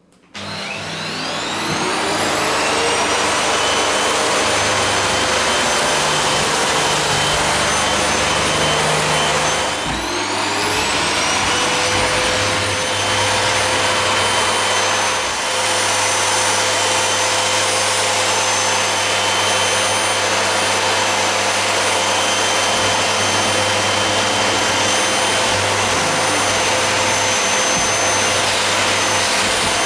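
A high-speed motor starting up with a rising whine, then running steadily. About ten seconds in it briefly slows and spins back up to the same steady whine.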